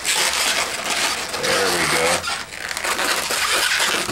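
Latex twisting balloons rubbing and squeaking against each other and the fingers as a pinch twist is twisted and worked into place, with a short wavering rubber squeak about halfway through.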